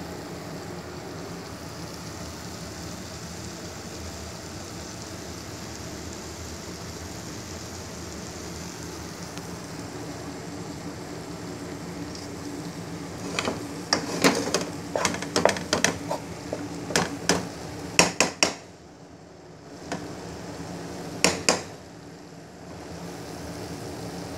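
Wooden spatula knocking against a nonstick frying pan of fried rice: a quick run of sharp taps starting about halfway in, then two more a few seconds later. A steady hiss lies under the rest.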